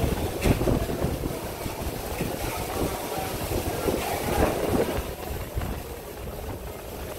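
Hurricane Dorian's hurricane-force wind with driven rain, a low rushing noise that swells and eases in gusts, the wind striking the microphone. This is the storm's back side after the eye, when the wind has picked up again.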